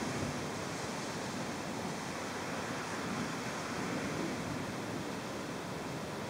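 Steady rushing hiss of a heavy thunderstorm downpour, with soft swells of wind now and then.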